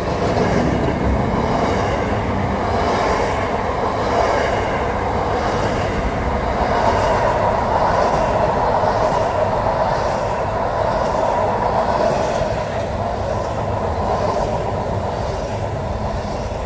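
Freight train wagons rolling past close by at speed: a loud, steady noise of steel wheels running on the rails.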